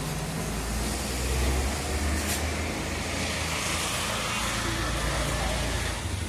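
Road traffic noise, with a motor vehicle's engine rumbling close by and loudest between about half a second and two and a half seconds in.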